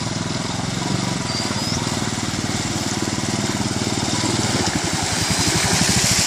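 Royal Enfield Thunderbird 500's single-cylinder engine running at low revs as the motorcycle rides through a shallow river, its separate firing beats plain from about two-thirds in. Water splashes around the wheels, louder near the end as the bike comes close.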